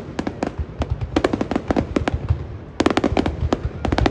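Fireworks going off in rapid clusters of sharp cracks and bangs, with a steady low rumble beneath.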